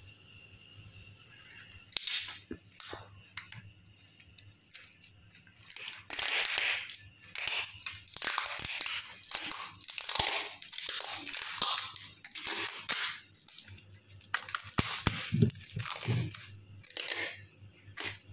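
Yellow adhesive tape being pulled off its roll in a series of irregular strips and wound around foam-insulated copper refrigerator pipes.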